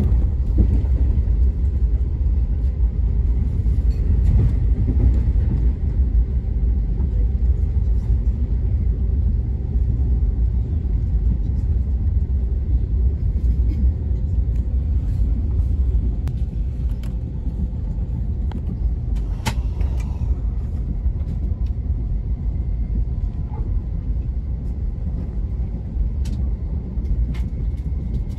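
Amtrak Acela train running, heard from aboard as a steady low rumble, with a few sharp clicks in the second half.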